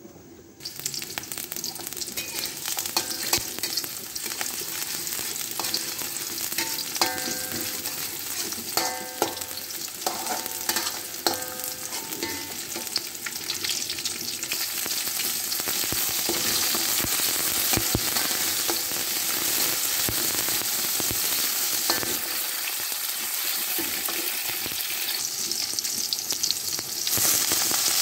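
Chopped shallots and garlic sizzling in hot oil in an aluminium wok, stirred with a metal spatula that scrapes and knocks against the pan. Near the end the sizzle jumps louder as the water spinach goes into the wok.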